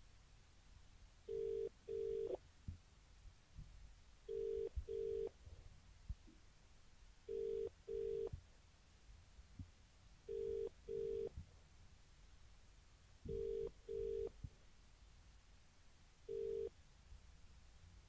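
Telephone ringing tone after dialing, in the British double-ring pattern: two short beeps repeating every three seconds. The sixth ring stops after its first beep. Faint clicks and knocks sound between the rings.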